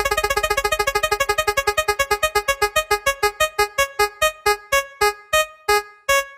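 A synthesized keyboard note struck over and over, fast at first and slowing steadily until the strikes come about a second apart near the end.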